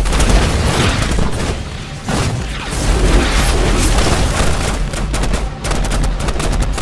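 Movie battle sound effects: rapid rifle and machine-gun fire with explosions booming over it.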